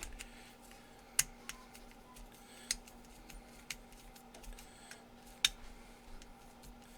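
Sharp small clicks and light handling ticks from a screwdriver, screw and wooden grip panel being fitted to an M1895 Nagant revolver's frame, the three loudest about a second, three seconds and five and a half seconds in.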